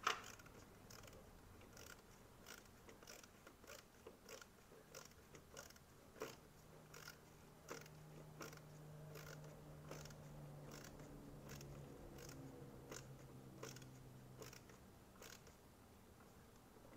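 Screwdriver tightening a worm-gear hose clamp on a rubber air intake boot: faint, short clicks about twice a second as the screw is turned.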